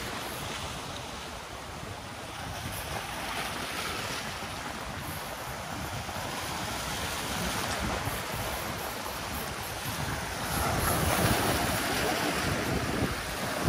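Sea surf breaking and washing against the rocks of a jetty, with wind buffeting the microphone; the surf grows louder about ten seconds in.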